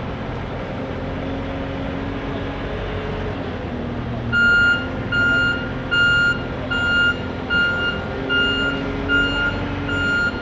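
Skid steer loader's engine running with its pitch shifting up and down. From a little under halfway in, its backup alarm beeps steadily, about one beep every 0.8 s, as the machine reverses.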